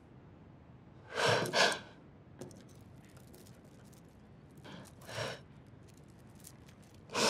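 A person crying with a shaky, catching sob-breath about a second in, a softer sighing breath about five seconds in, and another sob near the end; quiet room tone between.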